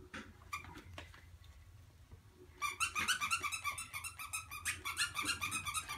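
Squeakers inside a football-shaped dog toy squeezed over and over: a few faint handling taps, then about two and a half seconds in a fast run of high squeaks.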